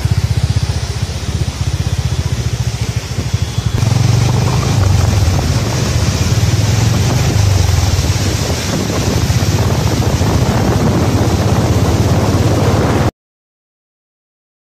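Loud, steady roar of a large waterfall, rushing white water with a deep rumble. It cuts off abruptly shortly before the end, leaving silence.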